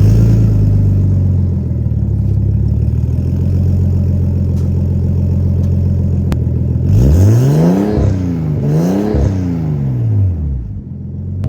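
Nissan Skyline R32 GTS-t's turbocharged straight-six idling steadily through a freshly fitted Trust/Greddy stainless catback exhaust, just after a start. About seven seconds in it is revved twice in quick succession, each rev rising and falling, then it settles back to idle.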